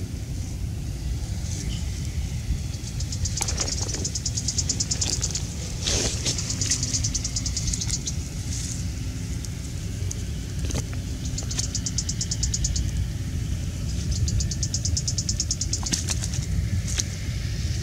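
Steady low rumble of wind buffeting the microphone, with four bursts of rapid high-pitched insect trilling, each a second or two long, and a few light knocks.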